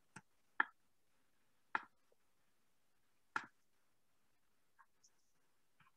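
A few scattered computer mouse clicks, the clearest about half a second, two seconds and three and a half seconds in, with fainter ones near the end, in an otherwise quiet room.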